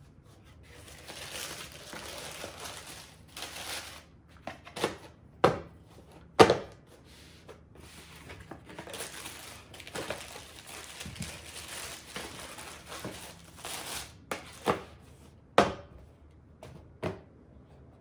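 Tissue paper rustling and crinkling as sneakers are handled and lifted out of a cardboard shoebox, with several sharp knocks from handling the shoes and box, the loudest about six seconds in.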